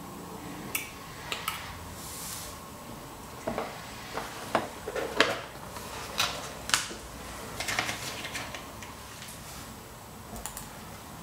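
Light clicks and plastic clatter as a clear plastic compartment box of heat-shrink tubing is handled, busiest in the middle. A couple of small snips near the end as scissors cut thin wire.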